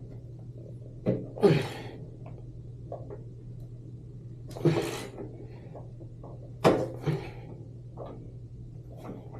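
Several short, separate clunks and scrapes, as of tools being handled and set against the tub drain, over a steady low hum. There is no run of impact-driver hammering.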